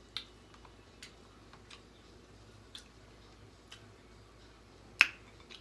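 Sparse, irregular small clicks and taps of seafood being eaten by hand, with one louder sharp tap about five seconds in.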